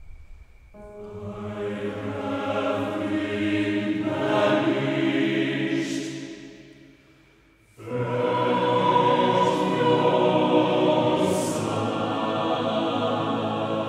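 Chamber choir singing a slow piece in harmony. It swells in, fades away around the middle, then comes back in suddenly and loudly with full chords.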